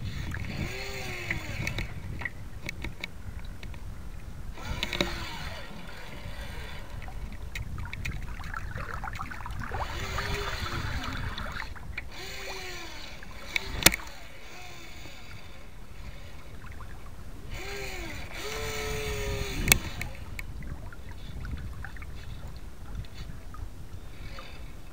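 Water splashing and rushing along the hull of a radio-controlled model sailboat under way in choppy water. Several short whines rise and fall in pitch, and two sharp clicks come past the middle.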